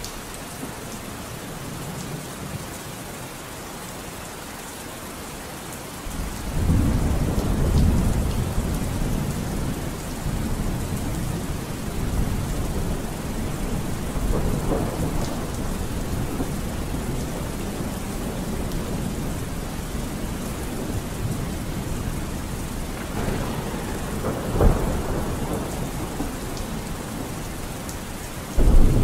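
Steady rain with rolling thunder; a deep, louder roll of thunder begins about six seconds in.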